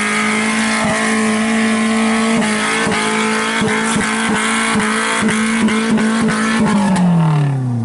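Off-road competition vehicle's engine held at high revs as it drives up a muddy slope, with sharp clicks and knocks through the middle. The revs fall away near the end.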